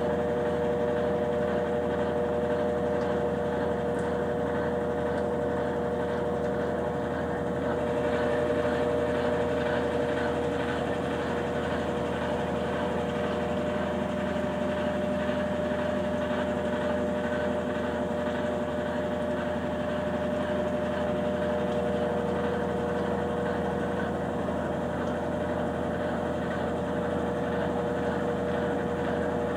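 Consul Facilite 9 kg top-loading washing machine running: a steady motor hum with a constant whine.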